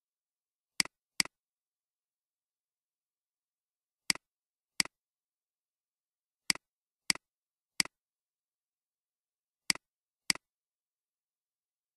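Computer mouse button clicks: nine sharp clicks in groups of two and three, each press followed at once by a fainter release tick.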